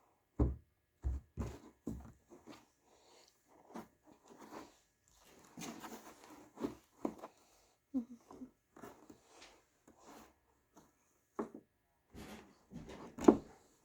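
Hands kneading and poking cloud slime: irregular sticky squishes and small pops, with a few duller thumps in the first second or so and one louder pop near the end.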